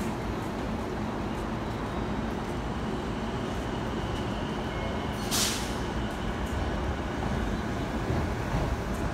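Steady low rumble of a railway platform, with one short, sharp hiss of compressed air about five seconds in, typical of a train's air brakes venting.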